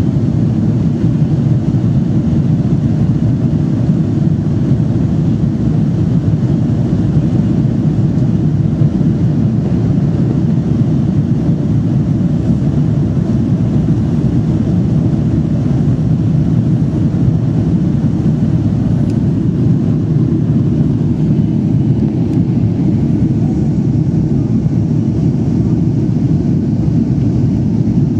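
Jet airliner cabin noise in flight: a steady low rumble of the engines and rushing air heard from inside the cabin.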